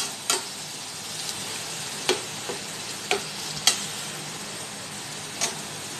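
A metal spoon stirring soup in a small saucepan, clinking sharply against the pot about seven times at irregular intervals over a steady hiss.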